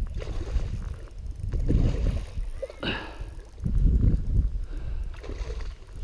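Hooked carp splashing and churning the water near the bank, in irregular low sloshing surges, with a brief sharper sound just before three seconds in.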